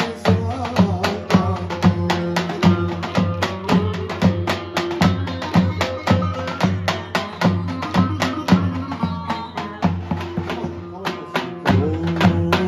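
Davul drums beaten in a fast, steady folk dance rhythm, about four strikes a second, with a sustained melody line played over them.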